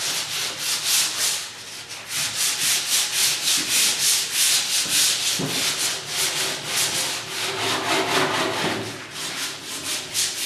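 Sandpaper on a sanding block scrubbing back and forth over cured Bondo body filler on a steel fender, in a steady rhythm of about four strokes a second with brief pauses. This is the rough sanding stage that knocks the high spots off the filler.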